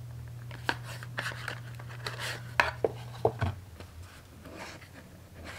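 Rigid cardboard gift box being opened and handled: a run of sharp taps and knocks over the first three seconds or so as the lid, inner box and outer box are moved and set down on a marble counter, then soft rustling.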